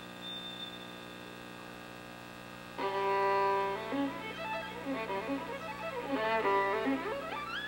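Solo violin playing with orchestral strings: a long, quiet high note, then about three seconds in a loud lower note that breaks into fast running passages, ending in a quick upward run.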